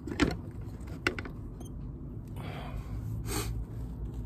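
Handling and movement noise as someone settles by a motorcycle's rear wheel: a sharp knock just after the start, a smaller click about a second in, then two short rustles later on.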